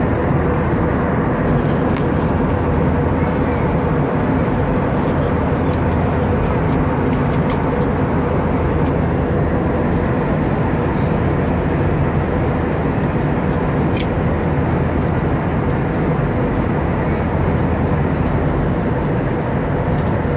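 Steady cabin noise inside an Airbus A320 in flight: a constant rush of engine and airflow noise with an even low drone running under it, broken only by a few faint clicks.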